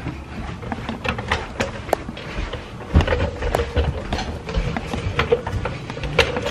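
Footsteps going down stairs while a lamp is carried, with irregular knocks, clicks and low thumps from the lamp and camera being handled. The heaviest thump comes about three seconds in.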